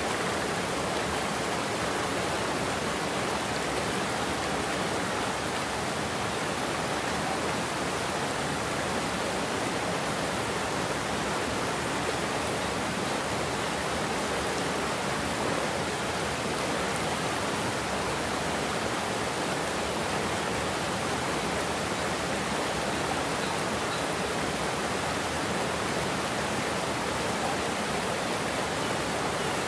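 Water pouring over a low concrete weir into churning whitewater below: a steady, unbroken rush.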